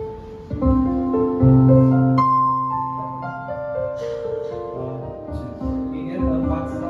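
Instrumental music: a series of sustained, overlapping notes, with new notes coming in every second or so.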